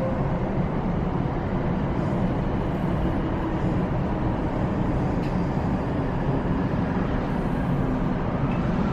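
Running noise heard inside a JR East E235-0 series electric train car: a steady rumble of wheels on track and the car in motion, with faint steady tones underneath.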